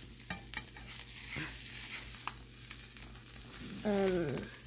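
Fried eggs sizzling in a nonstick frying pan, with a plastic spatula scraping and clicking against the pan as it is worked under the eggs to flip them. A short vocal sound with falling pitch comes near the end.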